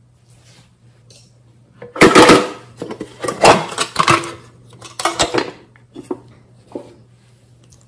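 A printed metal tin box handled and opened, its metal lid and sides clattering and rattling as a glass nail polish bottle is taken out of it, followed by a few lighter clicks.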